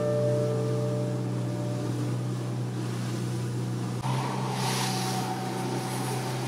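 Engine of a wooden motor cruiser running steadily under way through choppy sea, with water rushing along the hull. A gong-like chime fades out over the first couple of seconds. About four seconds in, the sound changes to the engine heard from inside the wheelhouse, with a brief rush of spray.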